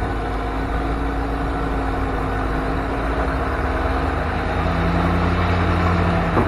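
Truck engine running steadily. A deeper note joins about four and a half seconds in and drops away near the end, where there is a short click.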